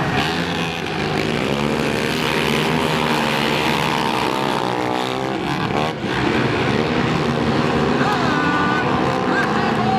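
Several racing quad (ATV) engines revving hard as they race around a dirt oval, their pitch repeatedly rising and falling, with a brief dip just before the middle.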